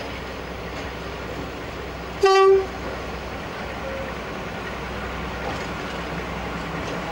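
Class 42 Warship diesel-hydraulic locomotive D832 Onslaught sounding its horn once, a short single note about two seconds in, as it approaches. Under it is the steady low rumble of the oncoming locomotive.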